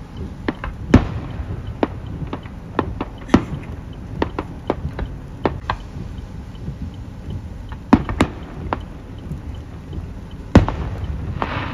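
Aerial firework shells bursting in an irregular series of bangs, some loud and sharp, others fainter, with the loudest reports about a second in, past three seconds, near eight seconds and past ten seconds. A short rush of crackling hiss follows the last big bang near the end.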